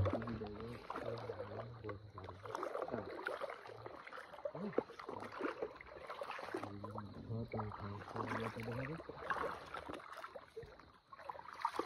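Water splashing and sloshing as someone wades and moves through shallow water, in short irregular splashes. A low hum comes and goes twice, each time for a second or two.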